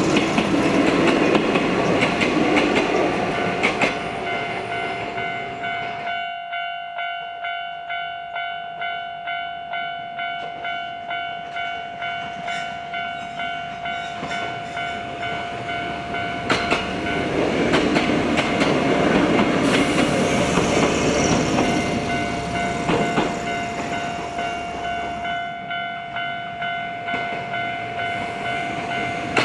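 Japanese railway level crossing alarm ringing its repeated electronic dings, a little more than one a second, while trains run past: train noise fills the first six seconds, stops abruptly, and rises again about 17 seconds in before easing off near 25 seconds.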